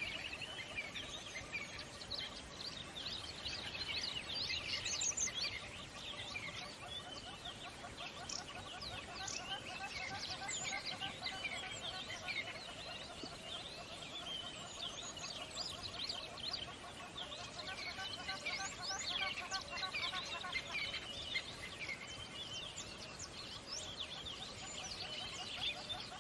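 A chorus of many songbirds chirping and singing at once: a dense, unbroken stream of quick high chirps and short whistled glides, with lower, evenly repeated trilling notes running underneath.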